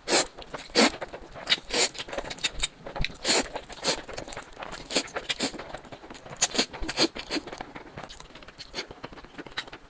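Close-miked eating for ASMR: irregular crunchy bites and chewing, a few sharp crunches a second.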